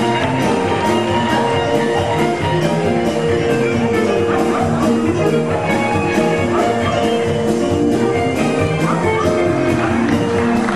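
Lively music with a steady, even beat.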